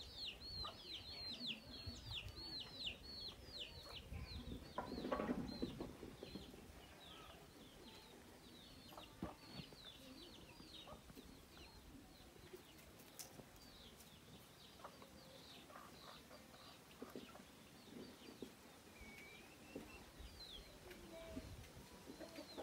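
Domestic chickens clucking softly among high, quick, falling chirps that come thickly in the first few seconds and more sparsely after. A louder, lower sound lasts about a second, roughly five seconds in.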